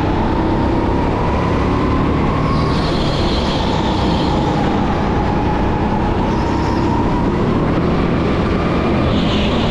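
Electric go-kart running at race speed: a steady motor whine whose pitch wavers with speed. Higher tyre squeals come through corners about two and a half seconds in and again near the end.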